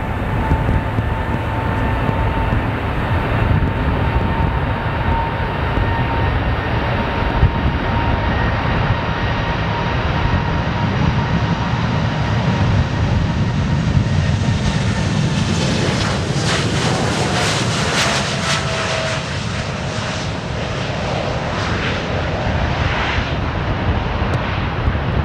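Airliner engines passing close by: a steady whine over a low rumble, then in the second half a louder hiss, with the whine falling in pitch as the aircraft goes past.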